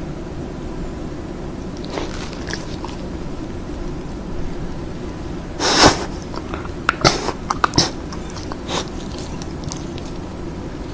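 Samoyed's close-miked mouth sounds, wet licking and lip-smacking clicks, with one louder snuffling burst about six seconds in and a quick run of sharp clicks just after, over a steady low hum and hiss.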